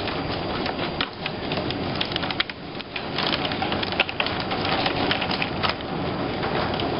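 Torrential rain in a windy thunderstorm: a dense, steady hiss of the downpour with many sharp ticks of drops striking close by.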